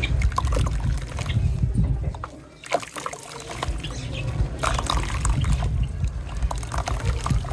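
Dry sand-cement clumps being crushed, with many small crunching crackles and loose grains trickling and pouring down. There is a brief lull about two and a half seconds in.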